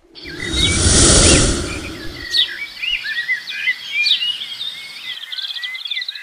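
Many small birds chirping busily, quick overlapping twittering calls throughout. A loud rushing noise with a low rumble is mixed in for the first two and a half seconds, then fades.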